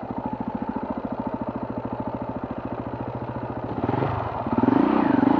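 Off-road motorcycle engine running at steady low revs with an even pulse, then revving up and down near the end as the throttle is opened.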